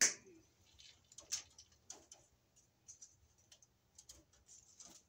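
Irregular small clicks and brief rustles as electrical cables are handled and worked with a hand wire tool inside a breaker panel, with one loud sharp click right at the start.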